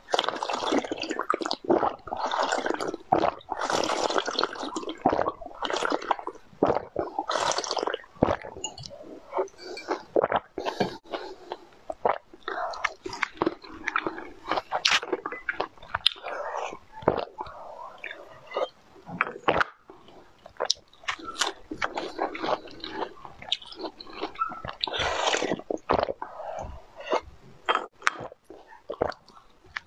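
Close-miked eating sounds: crisp crunching bites and chewing of a clear bird-shaped sweet, with many sharp cracks, followed by wetter chewing and squishing of strawberries and jelly. The crunching is densest in the first few seconds and comes back in short spells later on.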